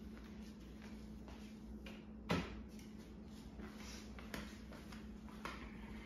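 A faint steady low hum with a single sharp knock a little over two seconds in, then a couple of fainter clicks.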